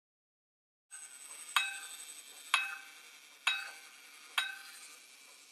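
Pocket-watch repeater striking its wire gong: four single, evenly spaced blows about a second apart, each ringing clearly and fading, the hour strikes of the repeat. A faint steady hiss starts just before the first blow.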